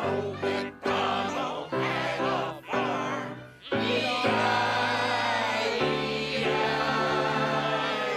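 Group of voices singing a song with instrumental backing, in short phrases at first, then holding one long chord from about four seconds in.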